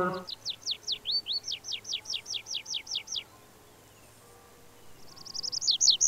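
A songbird singing a fast series of high, down-slurred whistled notes, about five a second, which stop about three seconds in. Near the end the song starts again with a quicker run of short notes, then more down-slurred notes.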